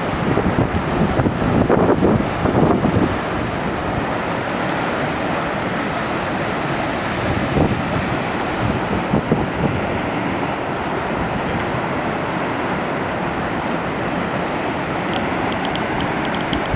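Waterfall and white water rushing steadily, with wind buffeting the microphone in gusts during the first few seconds.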